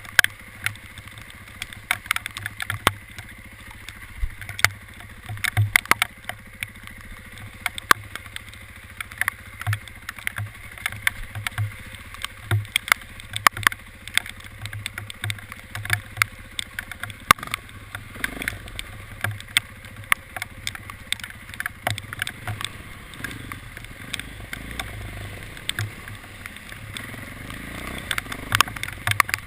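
Hailstones striking, many sharp irregular clicks every second over a low, steady rumble.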